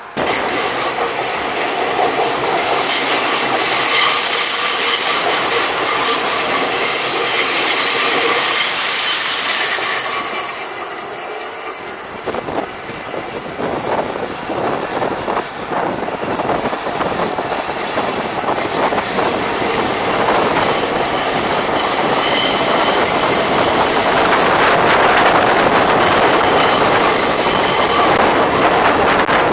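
Athens Metro Line 1 Siemens-AEG electric train running on the rails. Its wheels give high-pitched squeals several times, and the wheels clatter over the track in the middle stretch.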